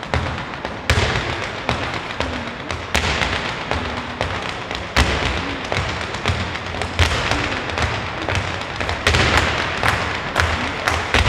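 Hard-shoe dance steps by a line of Irish-style dancers: dense rapid taps and stamps on a wooden parquet floor, over music with a steady low beat.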